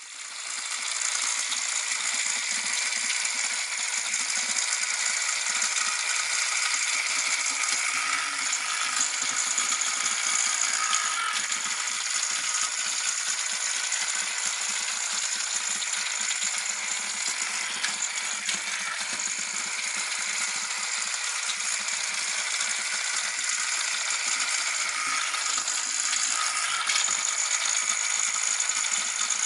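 Small toy robot vacuum cleaner running, its little motor whirring steadily with a continuous plastic rattle.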